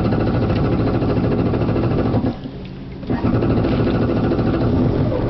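Yamaha WaveRunner engine turning over during a hard start, dropping out for under a second about two seconds in and then picking up again. The owner says the hard starting happens every time on the water.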